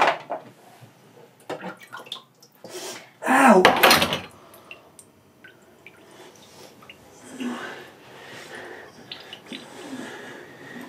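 Washing up at a stainless-steel kitchen sink: water splashing and dripping, with items knocking in the bowl. There is a sharp knock at the start and a loud sudden sound about three seconds in.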